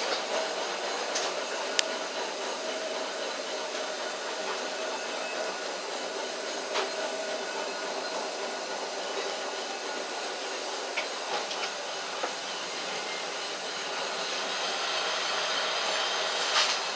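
Heritage Blackpool tram running along its tracks, heard from inside the driver's cab: a steady running hum and rumble with a faint constant tone, and a few sharp clicks or knocks from the car.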